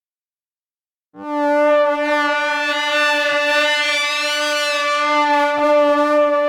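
A horror sound effect: after about a second of silence, a single long, steady horn-like blast at one unchanging pitch, bright and brassy.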